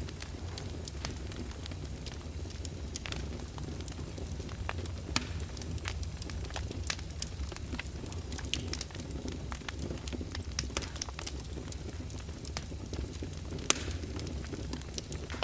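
Open fire in a fireplace crackling, with scattered sharp pops over a steady low rumble. A louder pop comes about five seconds in and another near the end.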